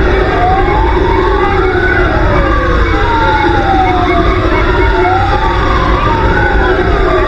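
Fire truck sirens wailing. Two rising-and-falling sweeps overlap out of step, each climbing quickly and sliding down more slowly, over a steady low rumble.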